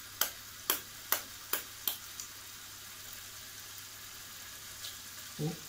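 An egg tapped with a spoon about six times in quick succession to crack its shell, over chili paste sizzling steadily in oil in a wok.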